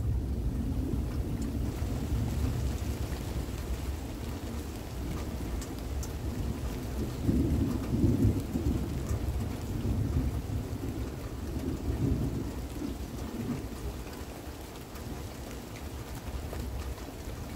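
Thunder rumbling low over steady rain. The tail of a peal fades in the first second, the rumble swells twice more, about seven and twelve seconds in, and then dies away.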